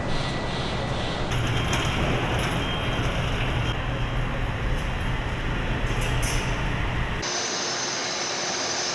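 Steady factory machinery noise with a low hum, from a vehicle assembly line. It changes abruptly about a second in and again near the end.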